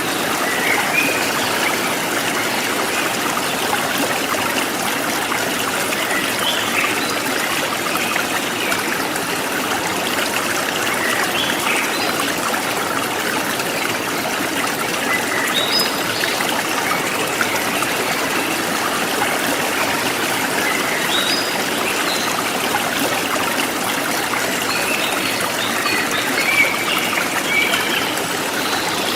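A forest stream flowing and trickling steadily, with brief bird chirps scattered over it.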